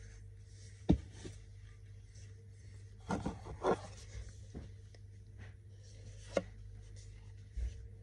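Fingers handling a white plastic container and picking at dried glue on it: a few sharp knocks and taps (the loudest about a second in, a quick cluster near the middle, more later) with soft scratching and rubbing between, over a low steady hum.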